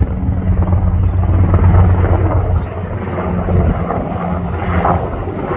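Black Hawk-type military helicopter flying overhead, its rotor beating steadily. It is loudest at first and drops back a little about two and a half seconds in.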